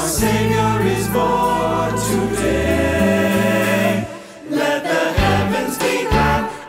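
Mixed choir of men's, women's and children's voices singing a Christmas anthem over instrumental accompaniment with a steady bass line. The sound drops away briefly about four seconds in, then the choir comes back in.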